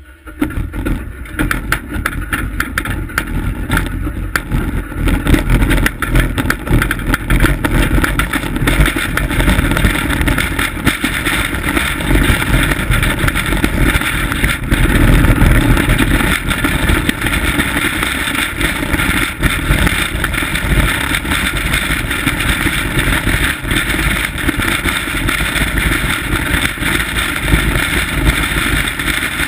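Steel runners of a 1939 bobsleigh running over the ice of a bob track at speed: a loud, steady rumbling and scraping that starts suddenly about half a second in as the sled gets going.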